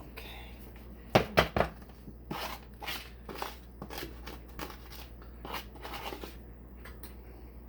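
A kitchen utensil knocking sharply against a cooking pot three times in quick succession, then a run of scraping strokes as cheese is stirred into the macaroni.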